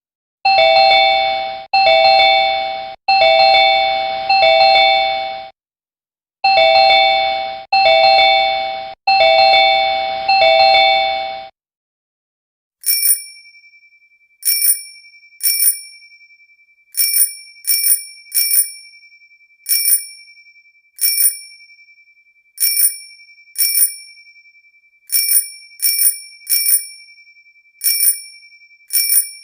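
An electronic bell rings in two runs of sustained, one-second bursts, several tones sounding together. After a short gap, a bicycle bell is rung over and over, each sharp ding ringing and fading, about one a second, irregularly spaced.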